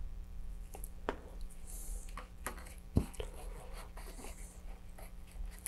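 Gloved hands handling a cardboard model rocket and a paper towel while gluing: scattered light clicks and taps, one sharper knock about three seconds in, and brief paper rustling around two and four seconds in.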